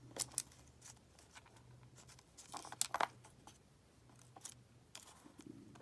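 Small sharp clicks and light rattling as tiny brass lock pins and springs from a gutted padlock are gathered up and handled, the busiest and loudest clicking about three seconds in. A faint steady hum lies underneath.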